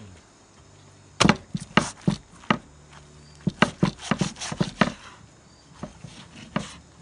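Meat cleaver chopping through a roast duck onto a wooden cutting board with sharp, separate chops. A few come from about a second in, then a quick run of about eight in the middle, then two more spaced out near the end.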